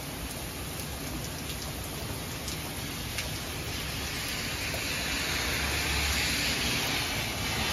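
Heavy rain pouring down as a steady hiss, with scattered drop splashes. The hiss grows louder in the second half.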